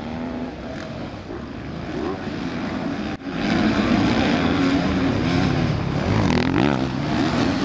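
Motocross bikes racing past, their engines revving up and down as the riders work the throttle through the gears. About three seconds in the sound breaks off sharply, then comes back louder.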